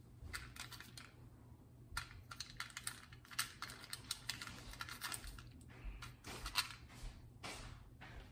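Small hard candies clicking and rattling in a small dish as fingers pick through them, a run of irregular light clicks and rustles.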